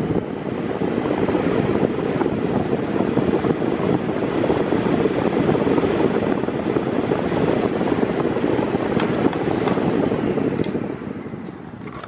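Steady rush of air from a 6-blade, 40 cm, 140 W Mondial electric fan running on its lowest speed setting, blowing against the microphone. The sound tails off near the end.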